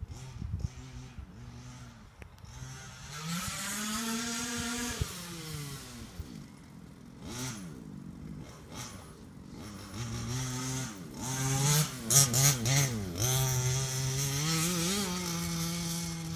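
Maverick Blackout MT 1/5-scale RC truck's two-stroke engine running through a DDM Racing tuned pipe, revving up and down with the pitch repeatedly rising and falling as the truck is driven. About twelve seconds in comes a quick run of throttle blips, the loudest part, after which the engine holds a steadier high note.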